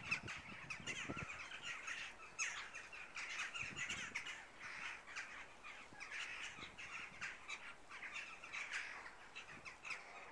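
A flock of birds calling, many short calls overlapping with hardly a break.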